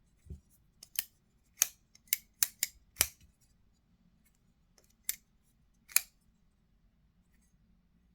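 Kizer Hyper button-lock folding knife being flicked open and shut, making sharp metallic clicks as the blade snaps into place: six in quick succession, then two more a second apart.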